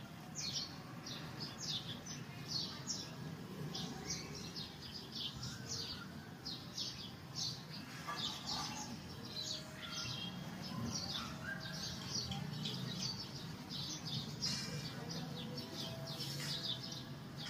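Small birds chirping continually, many short high chirps a few each second, over a low steady background hum.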